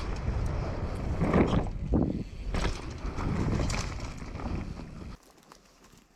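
Wind buffeting the camera microphone over the rumble of knobby tyres on a dirt trail as a mountain bike rides fast downhill, with several louder bursts from bumps and gusts. The noise cuts off suddenly about five seconds in, leaving a quiet background.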